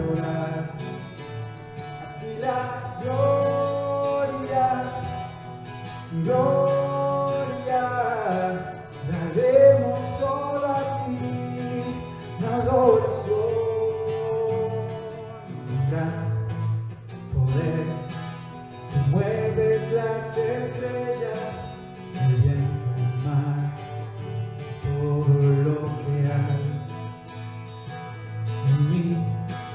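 A man singing a Spanish worship song, phrase by phrase, to a strummed acoustic guitar.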